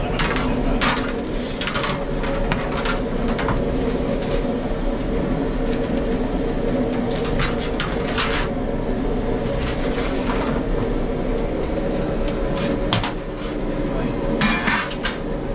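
Busy bakery kitchen: repeated short clatters and knocks of trays, dishes and utensils being handled over a steady hum.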